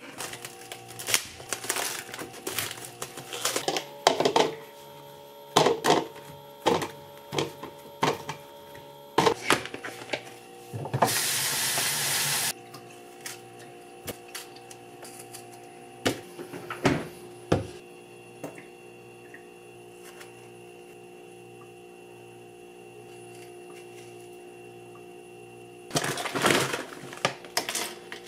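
Kitchen food-prep sounds over a steady hum: clicks and knocks as strawberries are handled in a plastic colander, and a brief rush of tap water about 11 seconds in. Near the end comes a clatter of frozen berries being scooped into a glass dessert cup.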